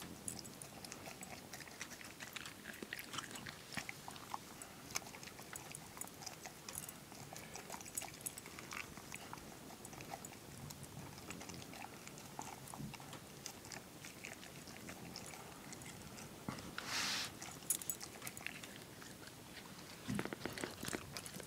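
A dog chewing and nibbling a pumpkin muffin in a metal bowl: faint, irregular clicks and smacks of eating, with a brief rush of noise about seventeen seconds in.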